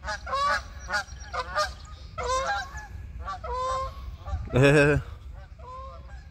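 Geese honking in flight overhead: a quick run of repeated short honks, with one louder, longer honk about four and a half seconds in.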